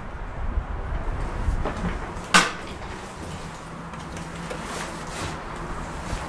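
Hydraulic elevator car: a single sharp clunk about two and a half seconds in, then a faint steady low hum.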